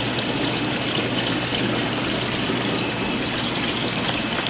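Steady bubbling and trickling of aquarium water from air-driven sponge filters and airlines in the fish tanks, full of small bubble pops, over a low steady hum.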